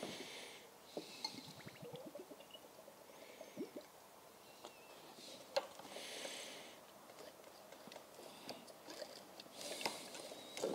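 Faint liquid sounds from a hand-pumped Girling master brake cylinder: brake fluid spurting and gurgling through a clear tube into a cup in short hissy spurts every couple of seconds, with light clicks from the push rod. Fresh DOT 4 fluid is being pumped through to flush debris out of the freed-up cylinder.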